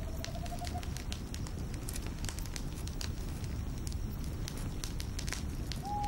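Campfire crackling and popping, with many small irregular snaps over a steady low rumble of the burning fire. A faint whistled note wavers in the first second and another sounds briefly near the end.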